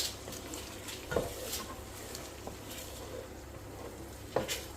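Eggs frying in a pan as they are scrambled: a steady sizzle with a utensil stirring, and two sharp knocks against the pan, about a second in and near the end.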